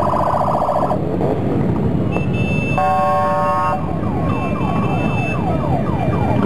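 Many cruiser motorcycle engines rumbling together as the bikes ride slowly past. Over them horns sound: one ends about a second in, another blares for about a second near the middle. Then a rapid falling warble, like a siren, repeats several times a second.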